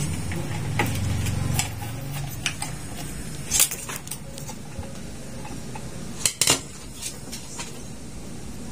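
Screwdriver and small metal parts clinking and tapping against the sheet-metal casing of an inverter air-conditioner part as it is taken apart. Scattered sharp taps, the loudest about three and a half and six and a half seconds in, with a low hum in the first second and a half.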